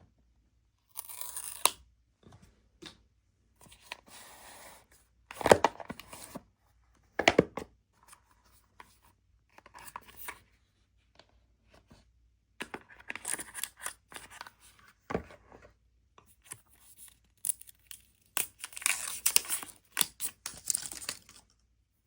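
Paper and cardboard packaging being torn and unwrapped, in irregular bursts of ripping and rustling, with a few knocks as the box is handled.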